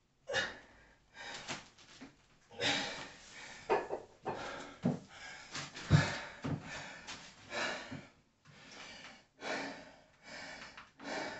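A man breathing hard after a weight-training set: forceful breaths, gasps and pants, about one a second.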